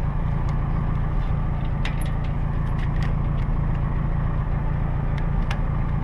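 Vehicle engine idling steadily, with a few light clicks and knocks as the trailer's light plug is connected.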